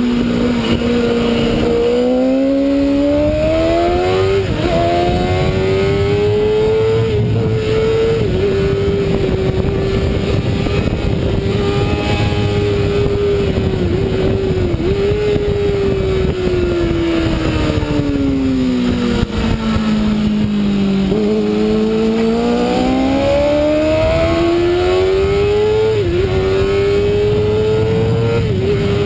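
Racing superbike engine heard on board at race pace, with wind rush over the bike: revs climb through a quick upshift in the first few seconds and hold high for a long stretch, fall away for several seconds as the bike slows for a corner, then climb again through another upshift near the end.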